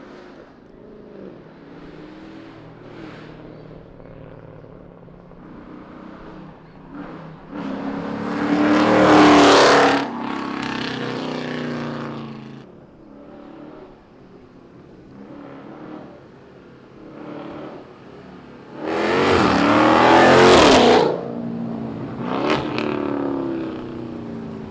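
2019 Chrysler 300's 5.7-litre Hemi V8, with long-tube headers and a straight-pipe exhaust, idling and then revved hard twice, the second rev about ten seconds after the first, with a short blip of the throttle near the end.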